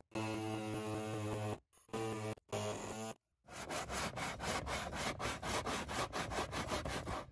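A steady humming tone, broken by a few sudden dropouts, gives way about three seconds in to the rhythmic rasp of a plastic seat-base skirt being cut by hand with back-and-forth saw strokes, about three a second.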